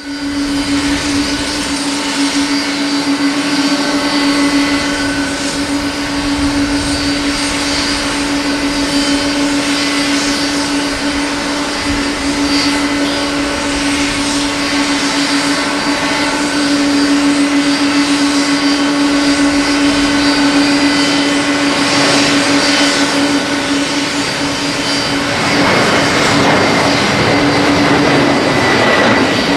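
Boeing 767-300ER's twin jet engines at takeoff power during the takeoff roll: a steady hum with a constant low tone over broad jet noise. About 25 seconds in, the noise grows louder and fuller as the airliner lifts off and climbs past, with a faint high whine slowly falling in pitch.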